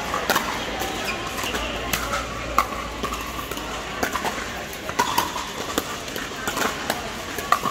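Pickleball paddles hitting plastic balls: irregular sharp pops, roughly one every second or so, from the rally on the near court and from neighbouring courts, over a background hubbub of voices in a large indoor hall.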